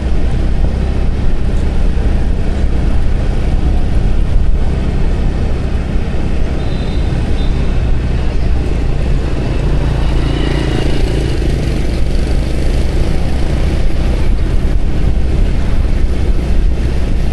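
Motorbike riding along a city street, heard from the bike itself: a steady engine drone with road noise, and other traffic passing.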